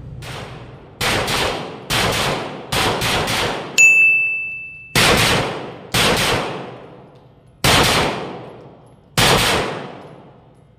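Iron City Rifle Works PCC9 Berserker 9, a 9mm pistol-caliber carbine, fired semi-auto at a steady pace: about nine single shots roughly a second apart, spacing out toward the end, each echoing off the concrete walls of an indoor range. After one shot midway a high steady ring hangs for about a second.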